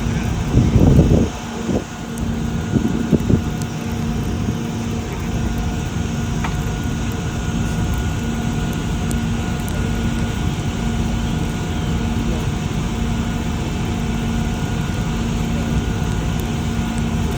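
Steady engine drone with a constant low hum, with two brief louder bursts about half a second and three seconds in.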